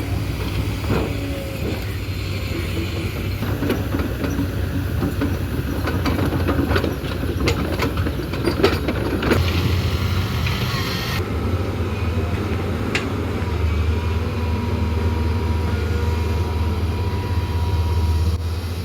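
A steady low mechanical hum, like a running engine, with a run of clicks and knocks in the middle.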